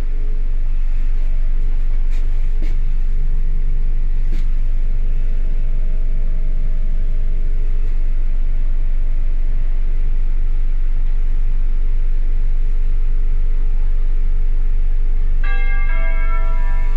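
ER2 electric multiple unit running, heard inside the carriage as a steady low rumble and hum. About fifteen seconds in, a ringing chime of several notes sounds over the train's public-address speakers, the signal for an onboard announcement.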